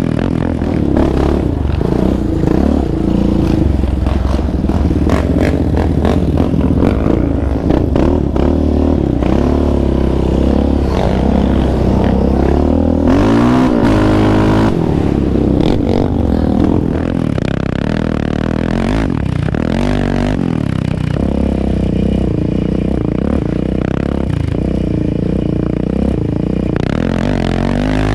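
Yamaha Raptor 700R quad's single-cylinder engine with an aftermarket exhaust, ridden hard on a rough trail: the revs climb and drop again and again through the gears, with clatter and rattling from the machine over the bumps.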